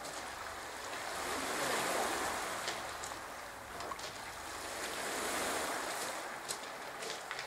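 Small waves washing in on a pebble beach, the surf swelling and easing twice, with a few faint clicks.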